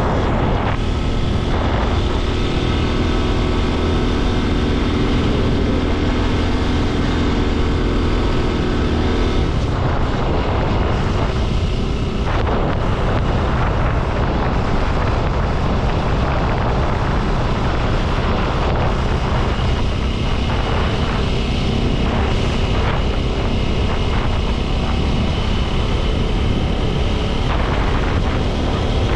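Motorcycle running at steady cruising speed on a highway, its engine note mixed with heavy wind rush on the microphone. A steady engine tone stands out for several seconds near the start and again in the latter part.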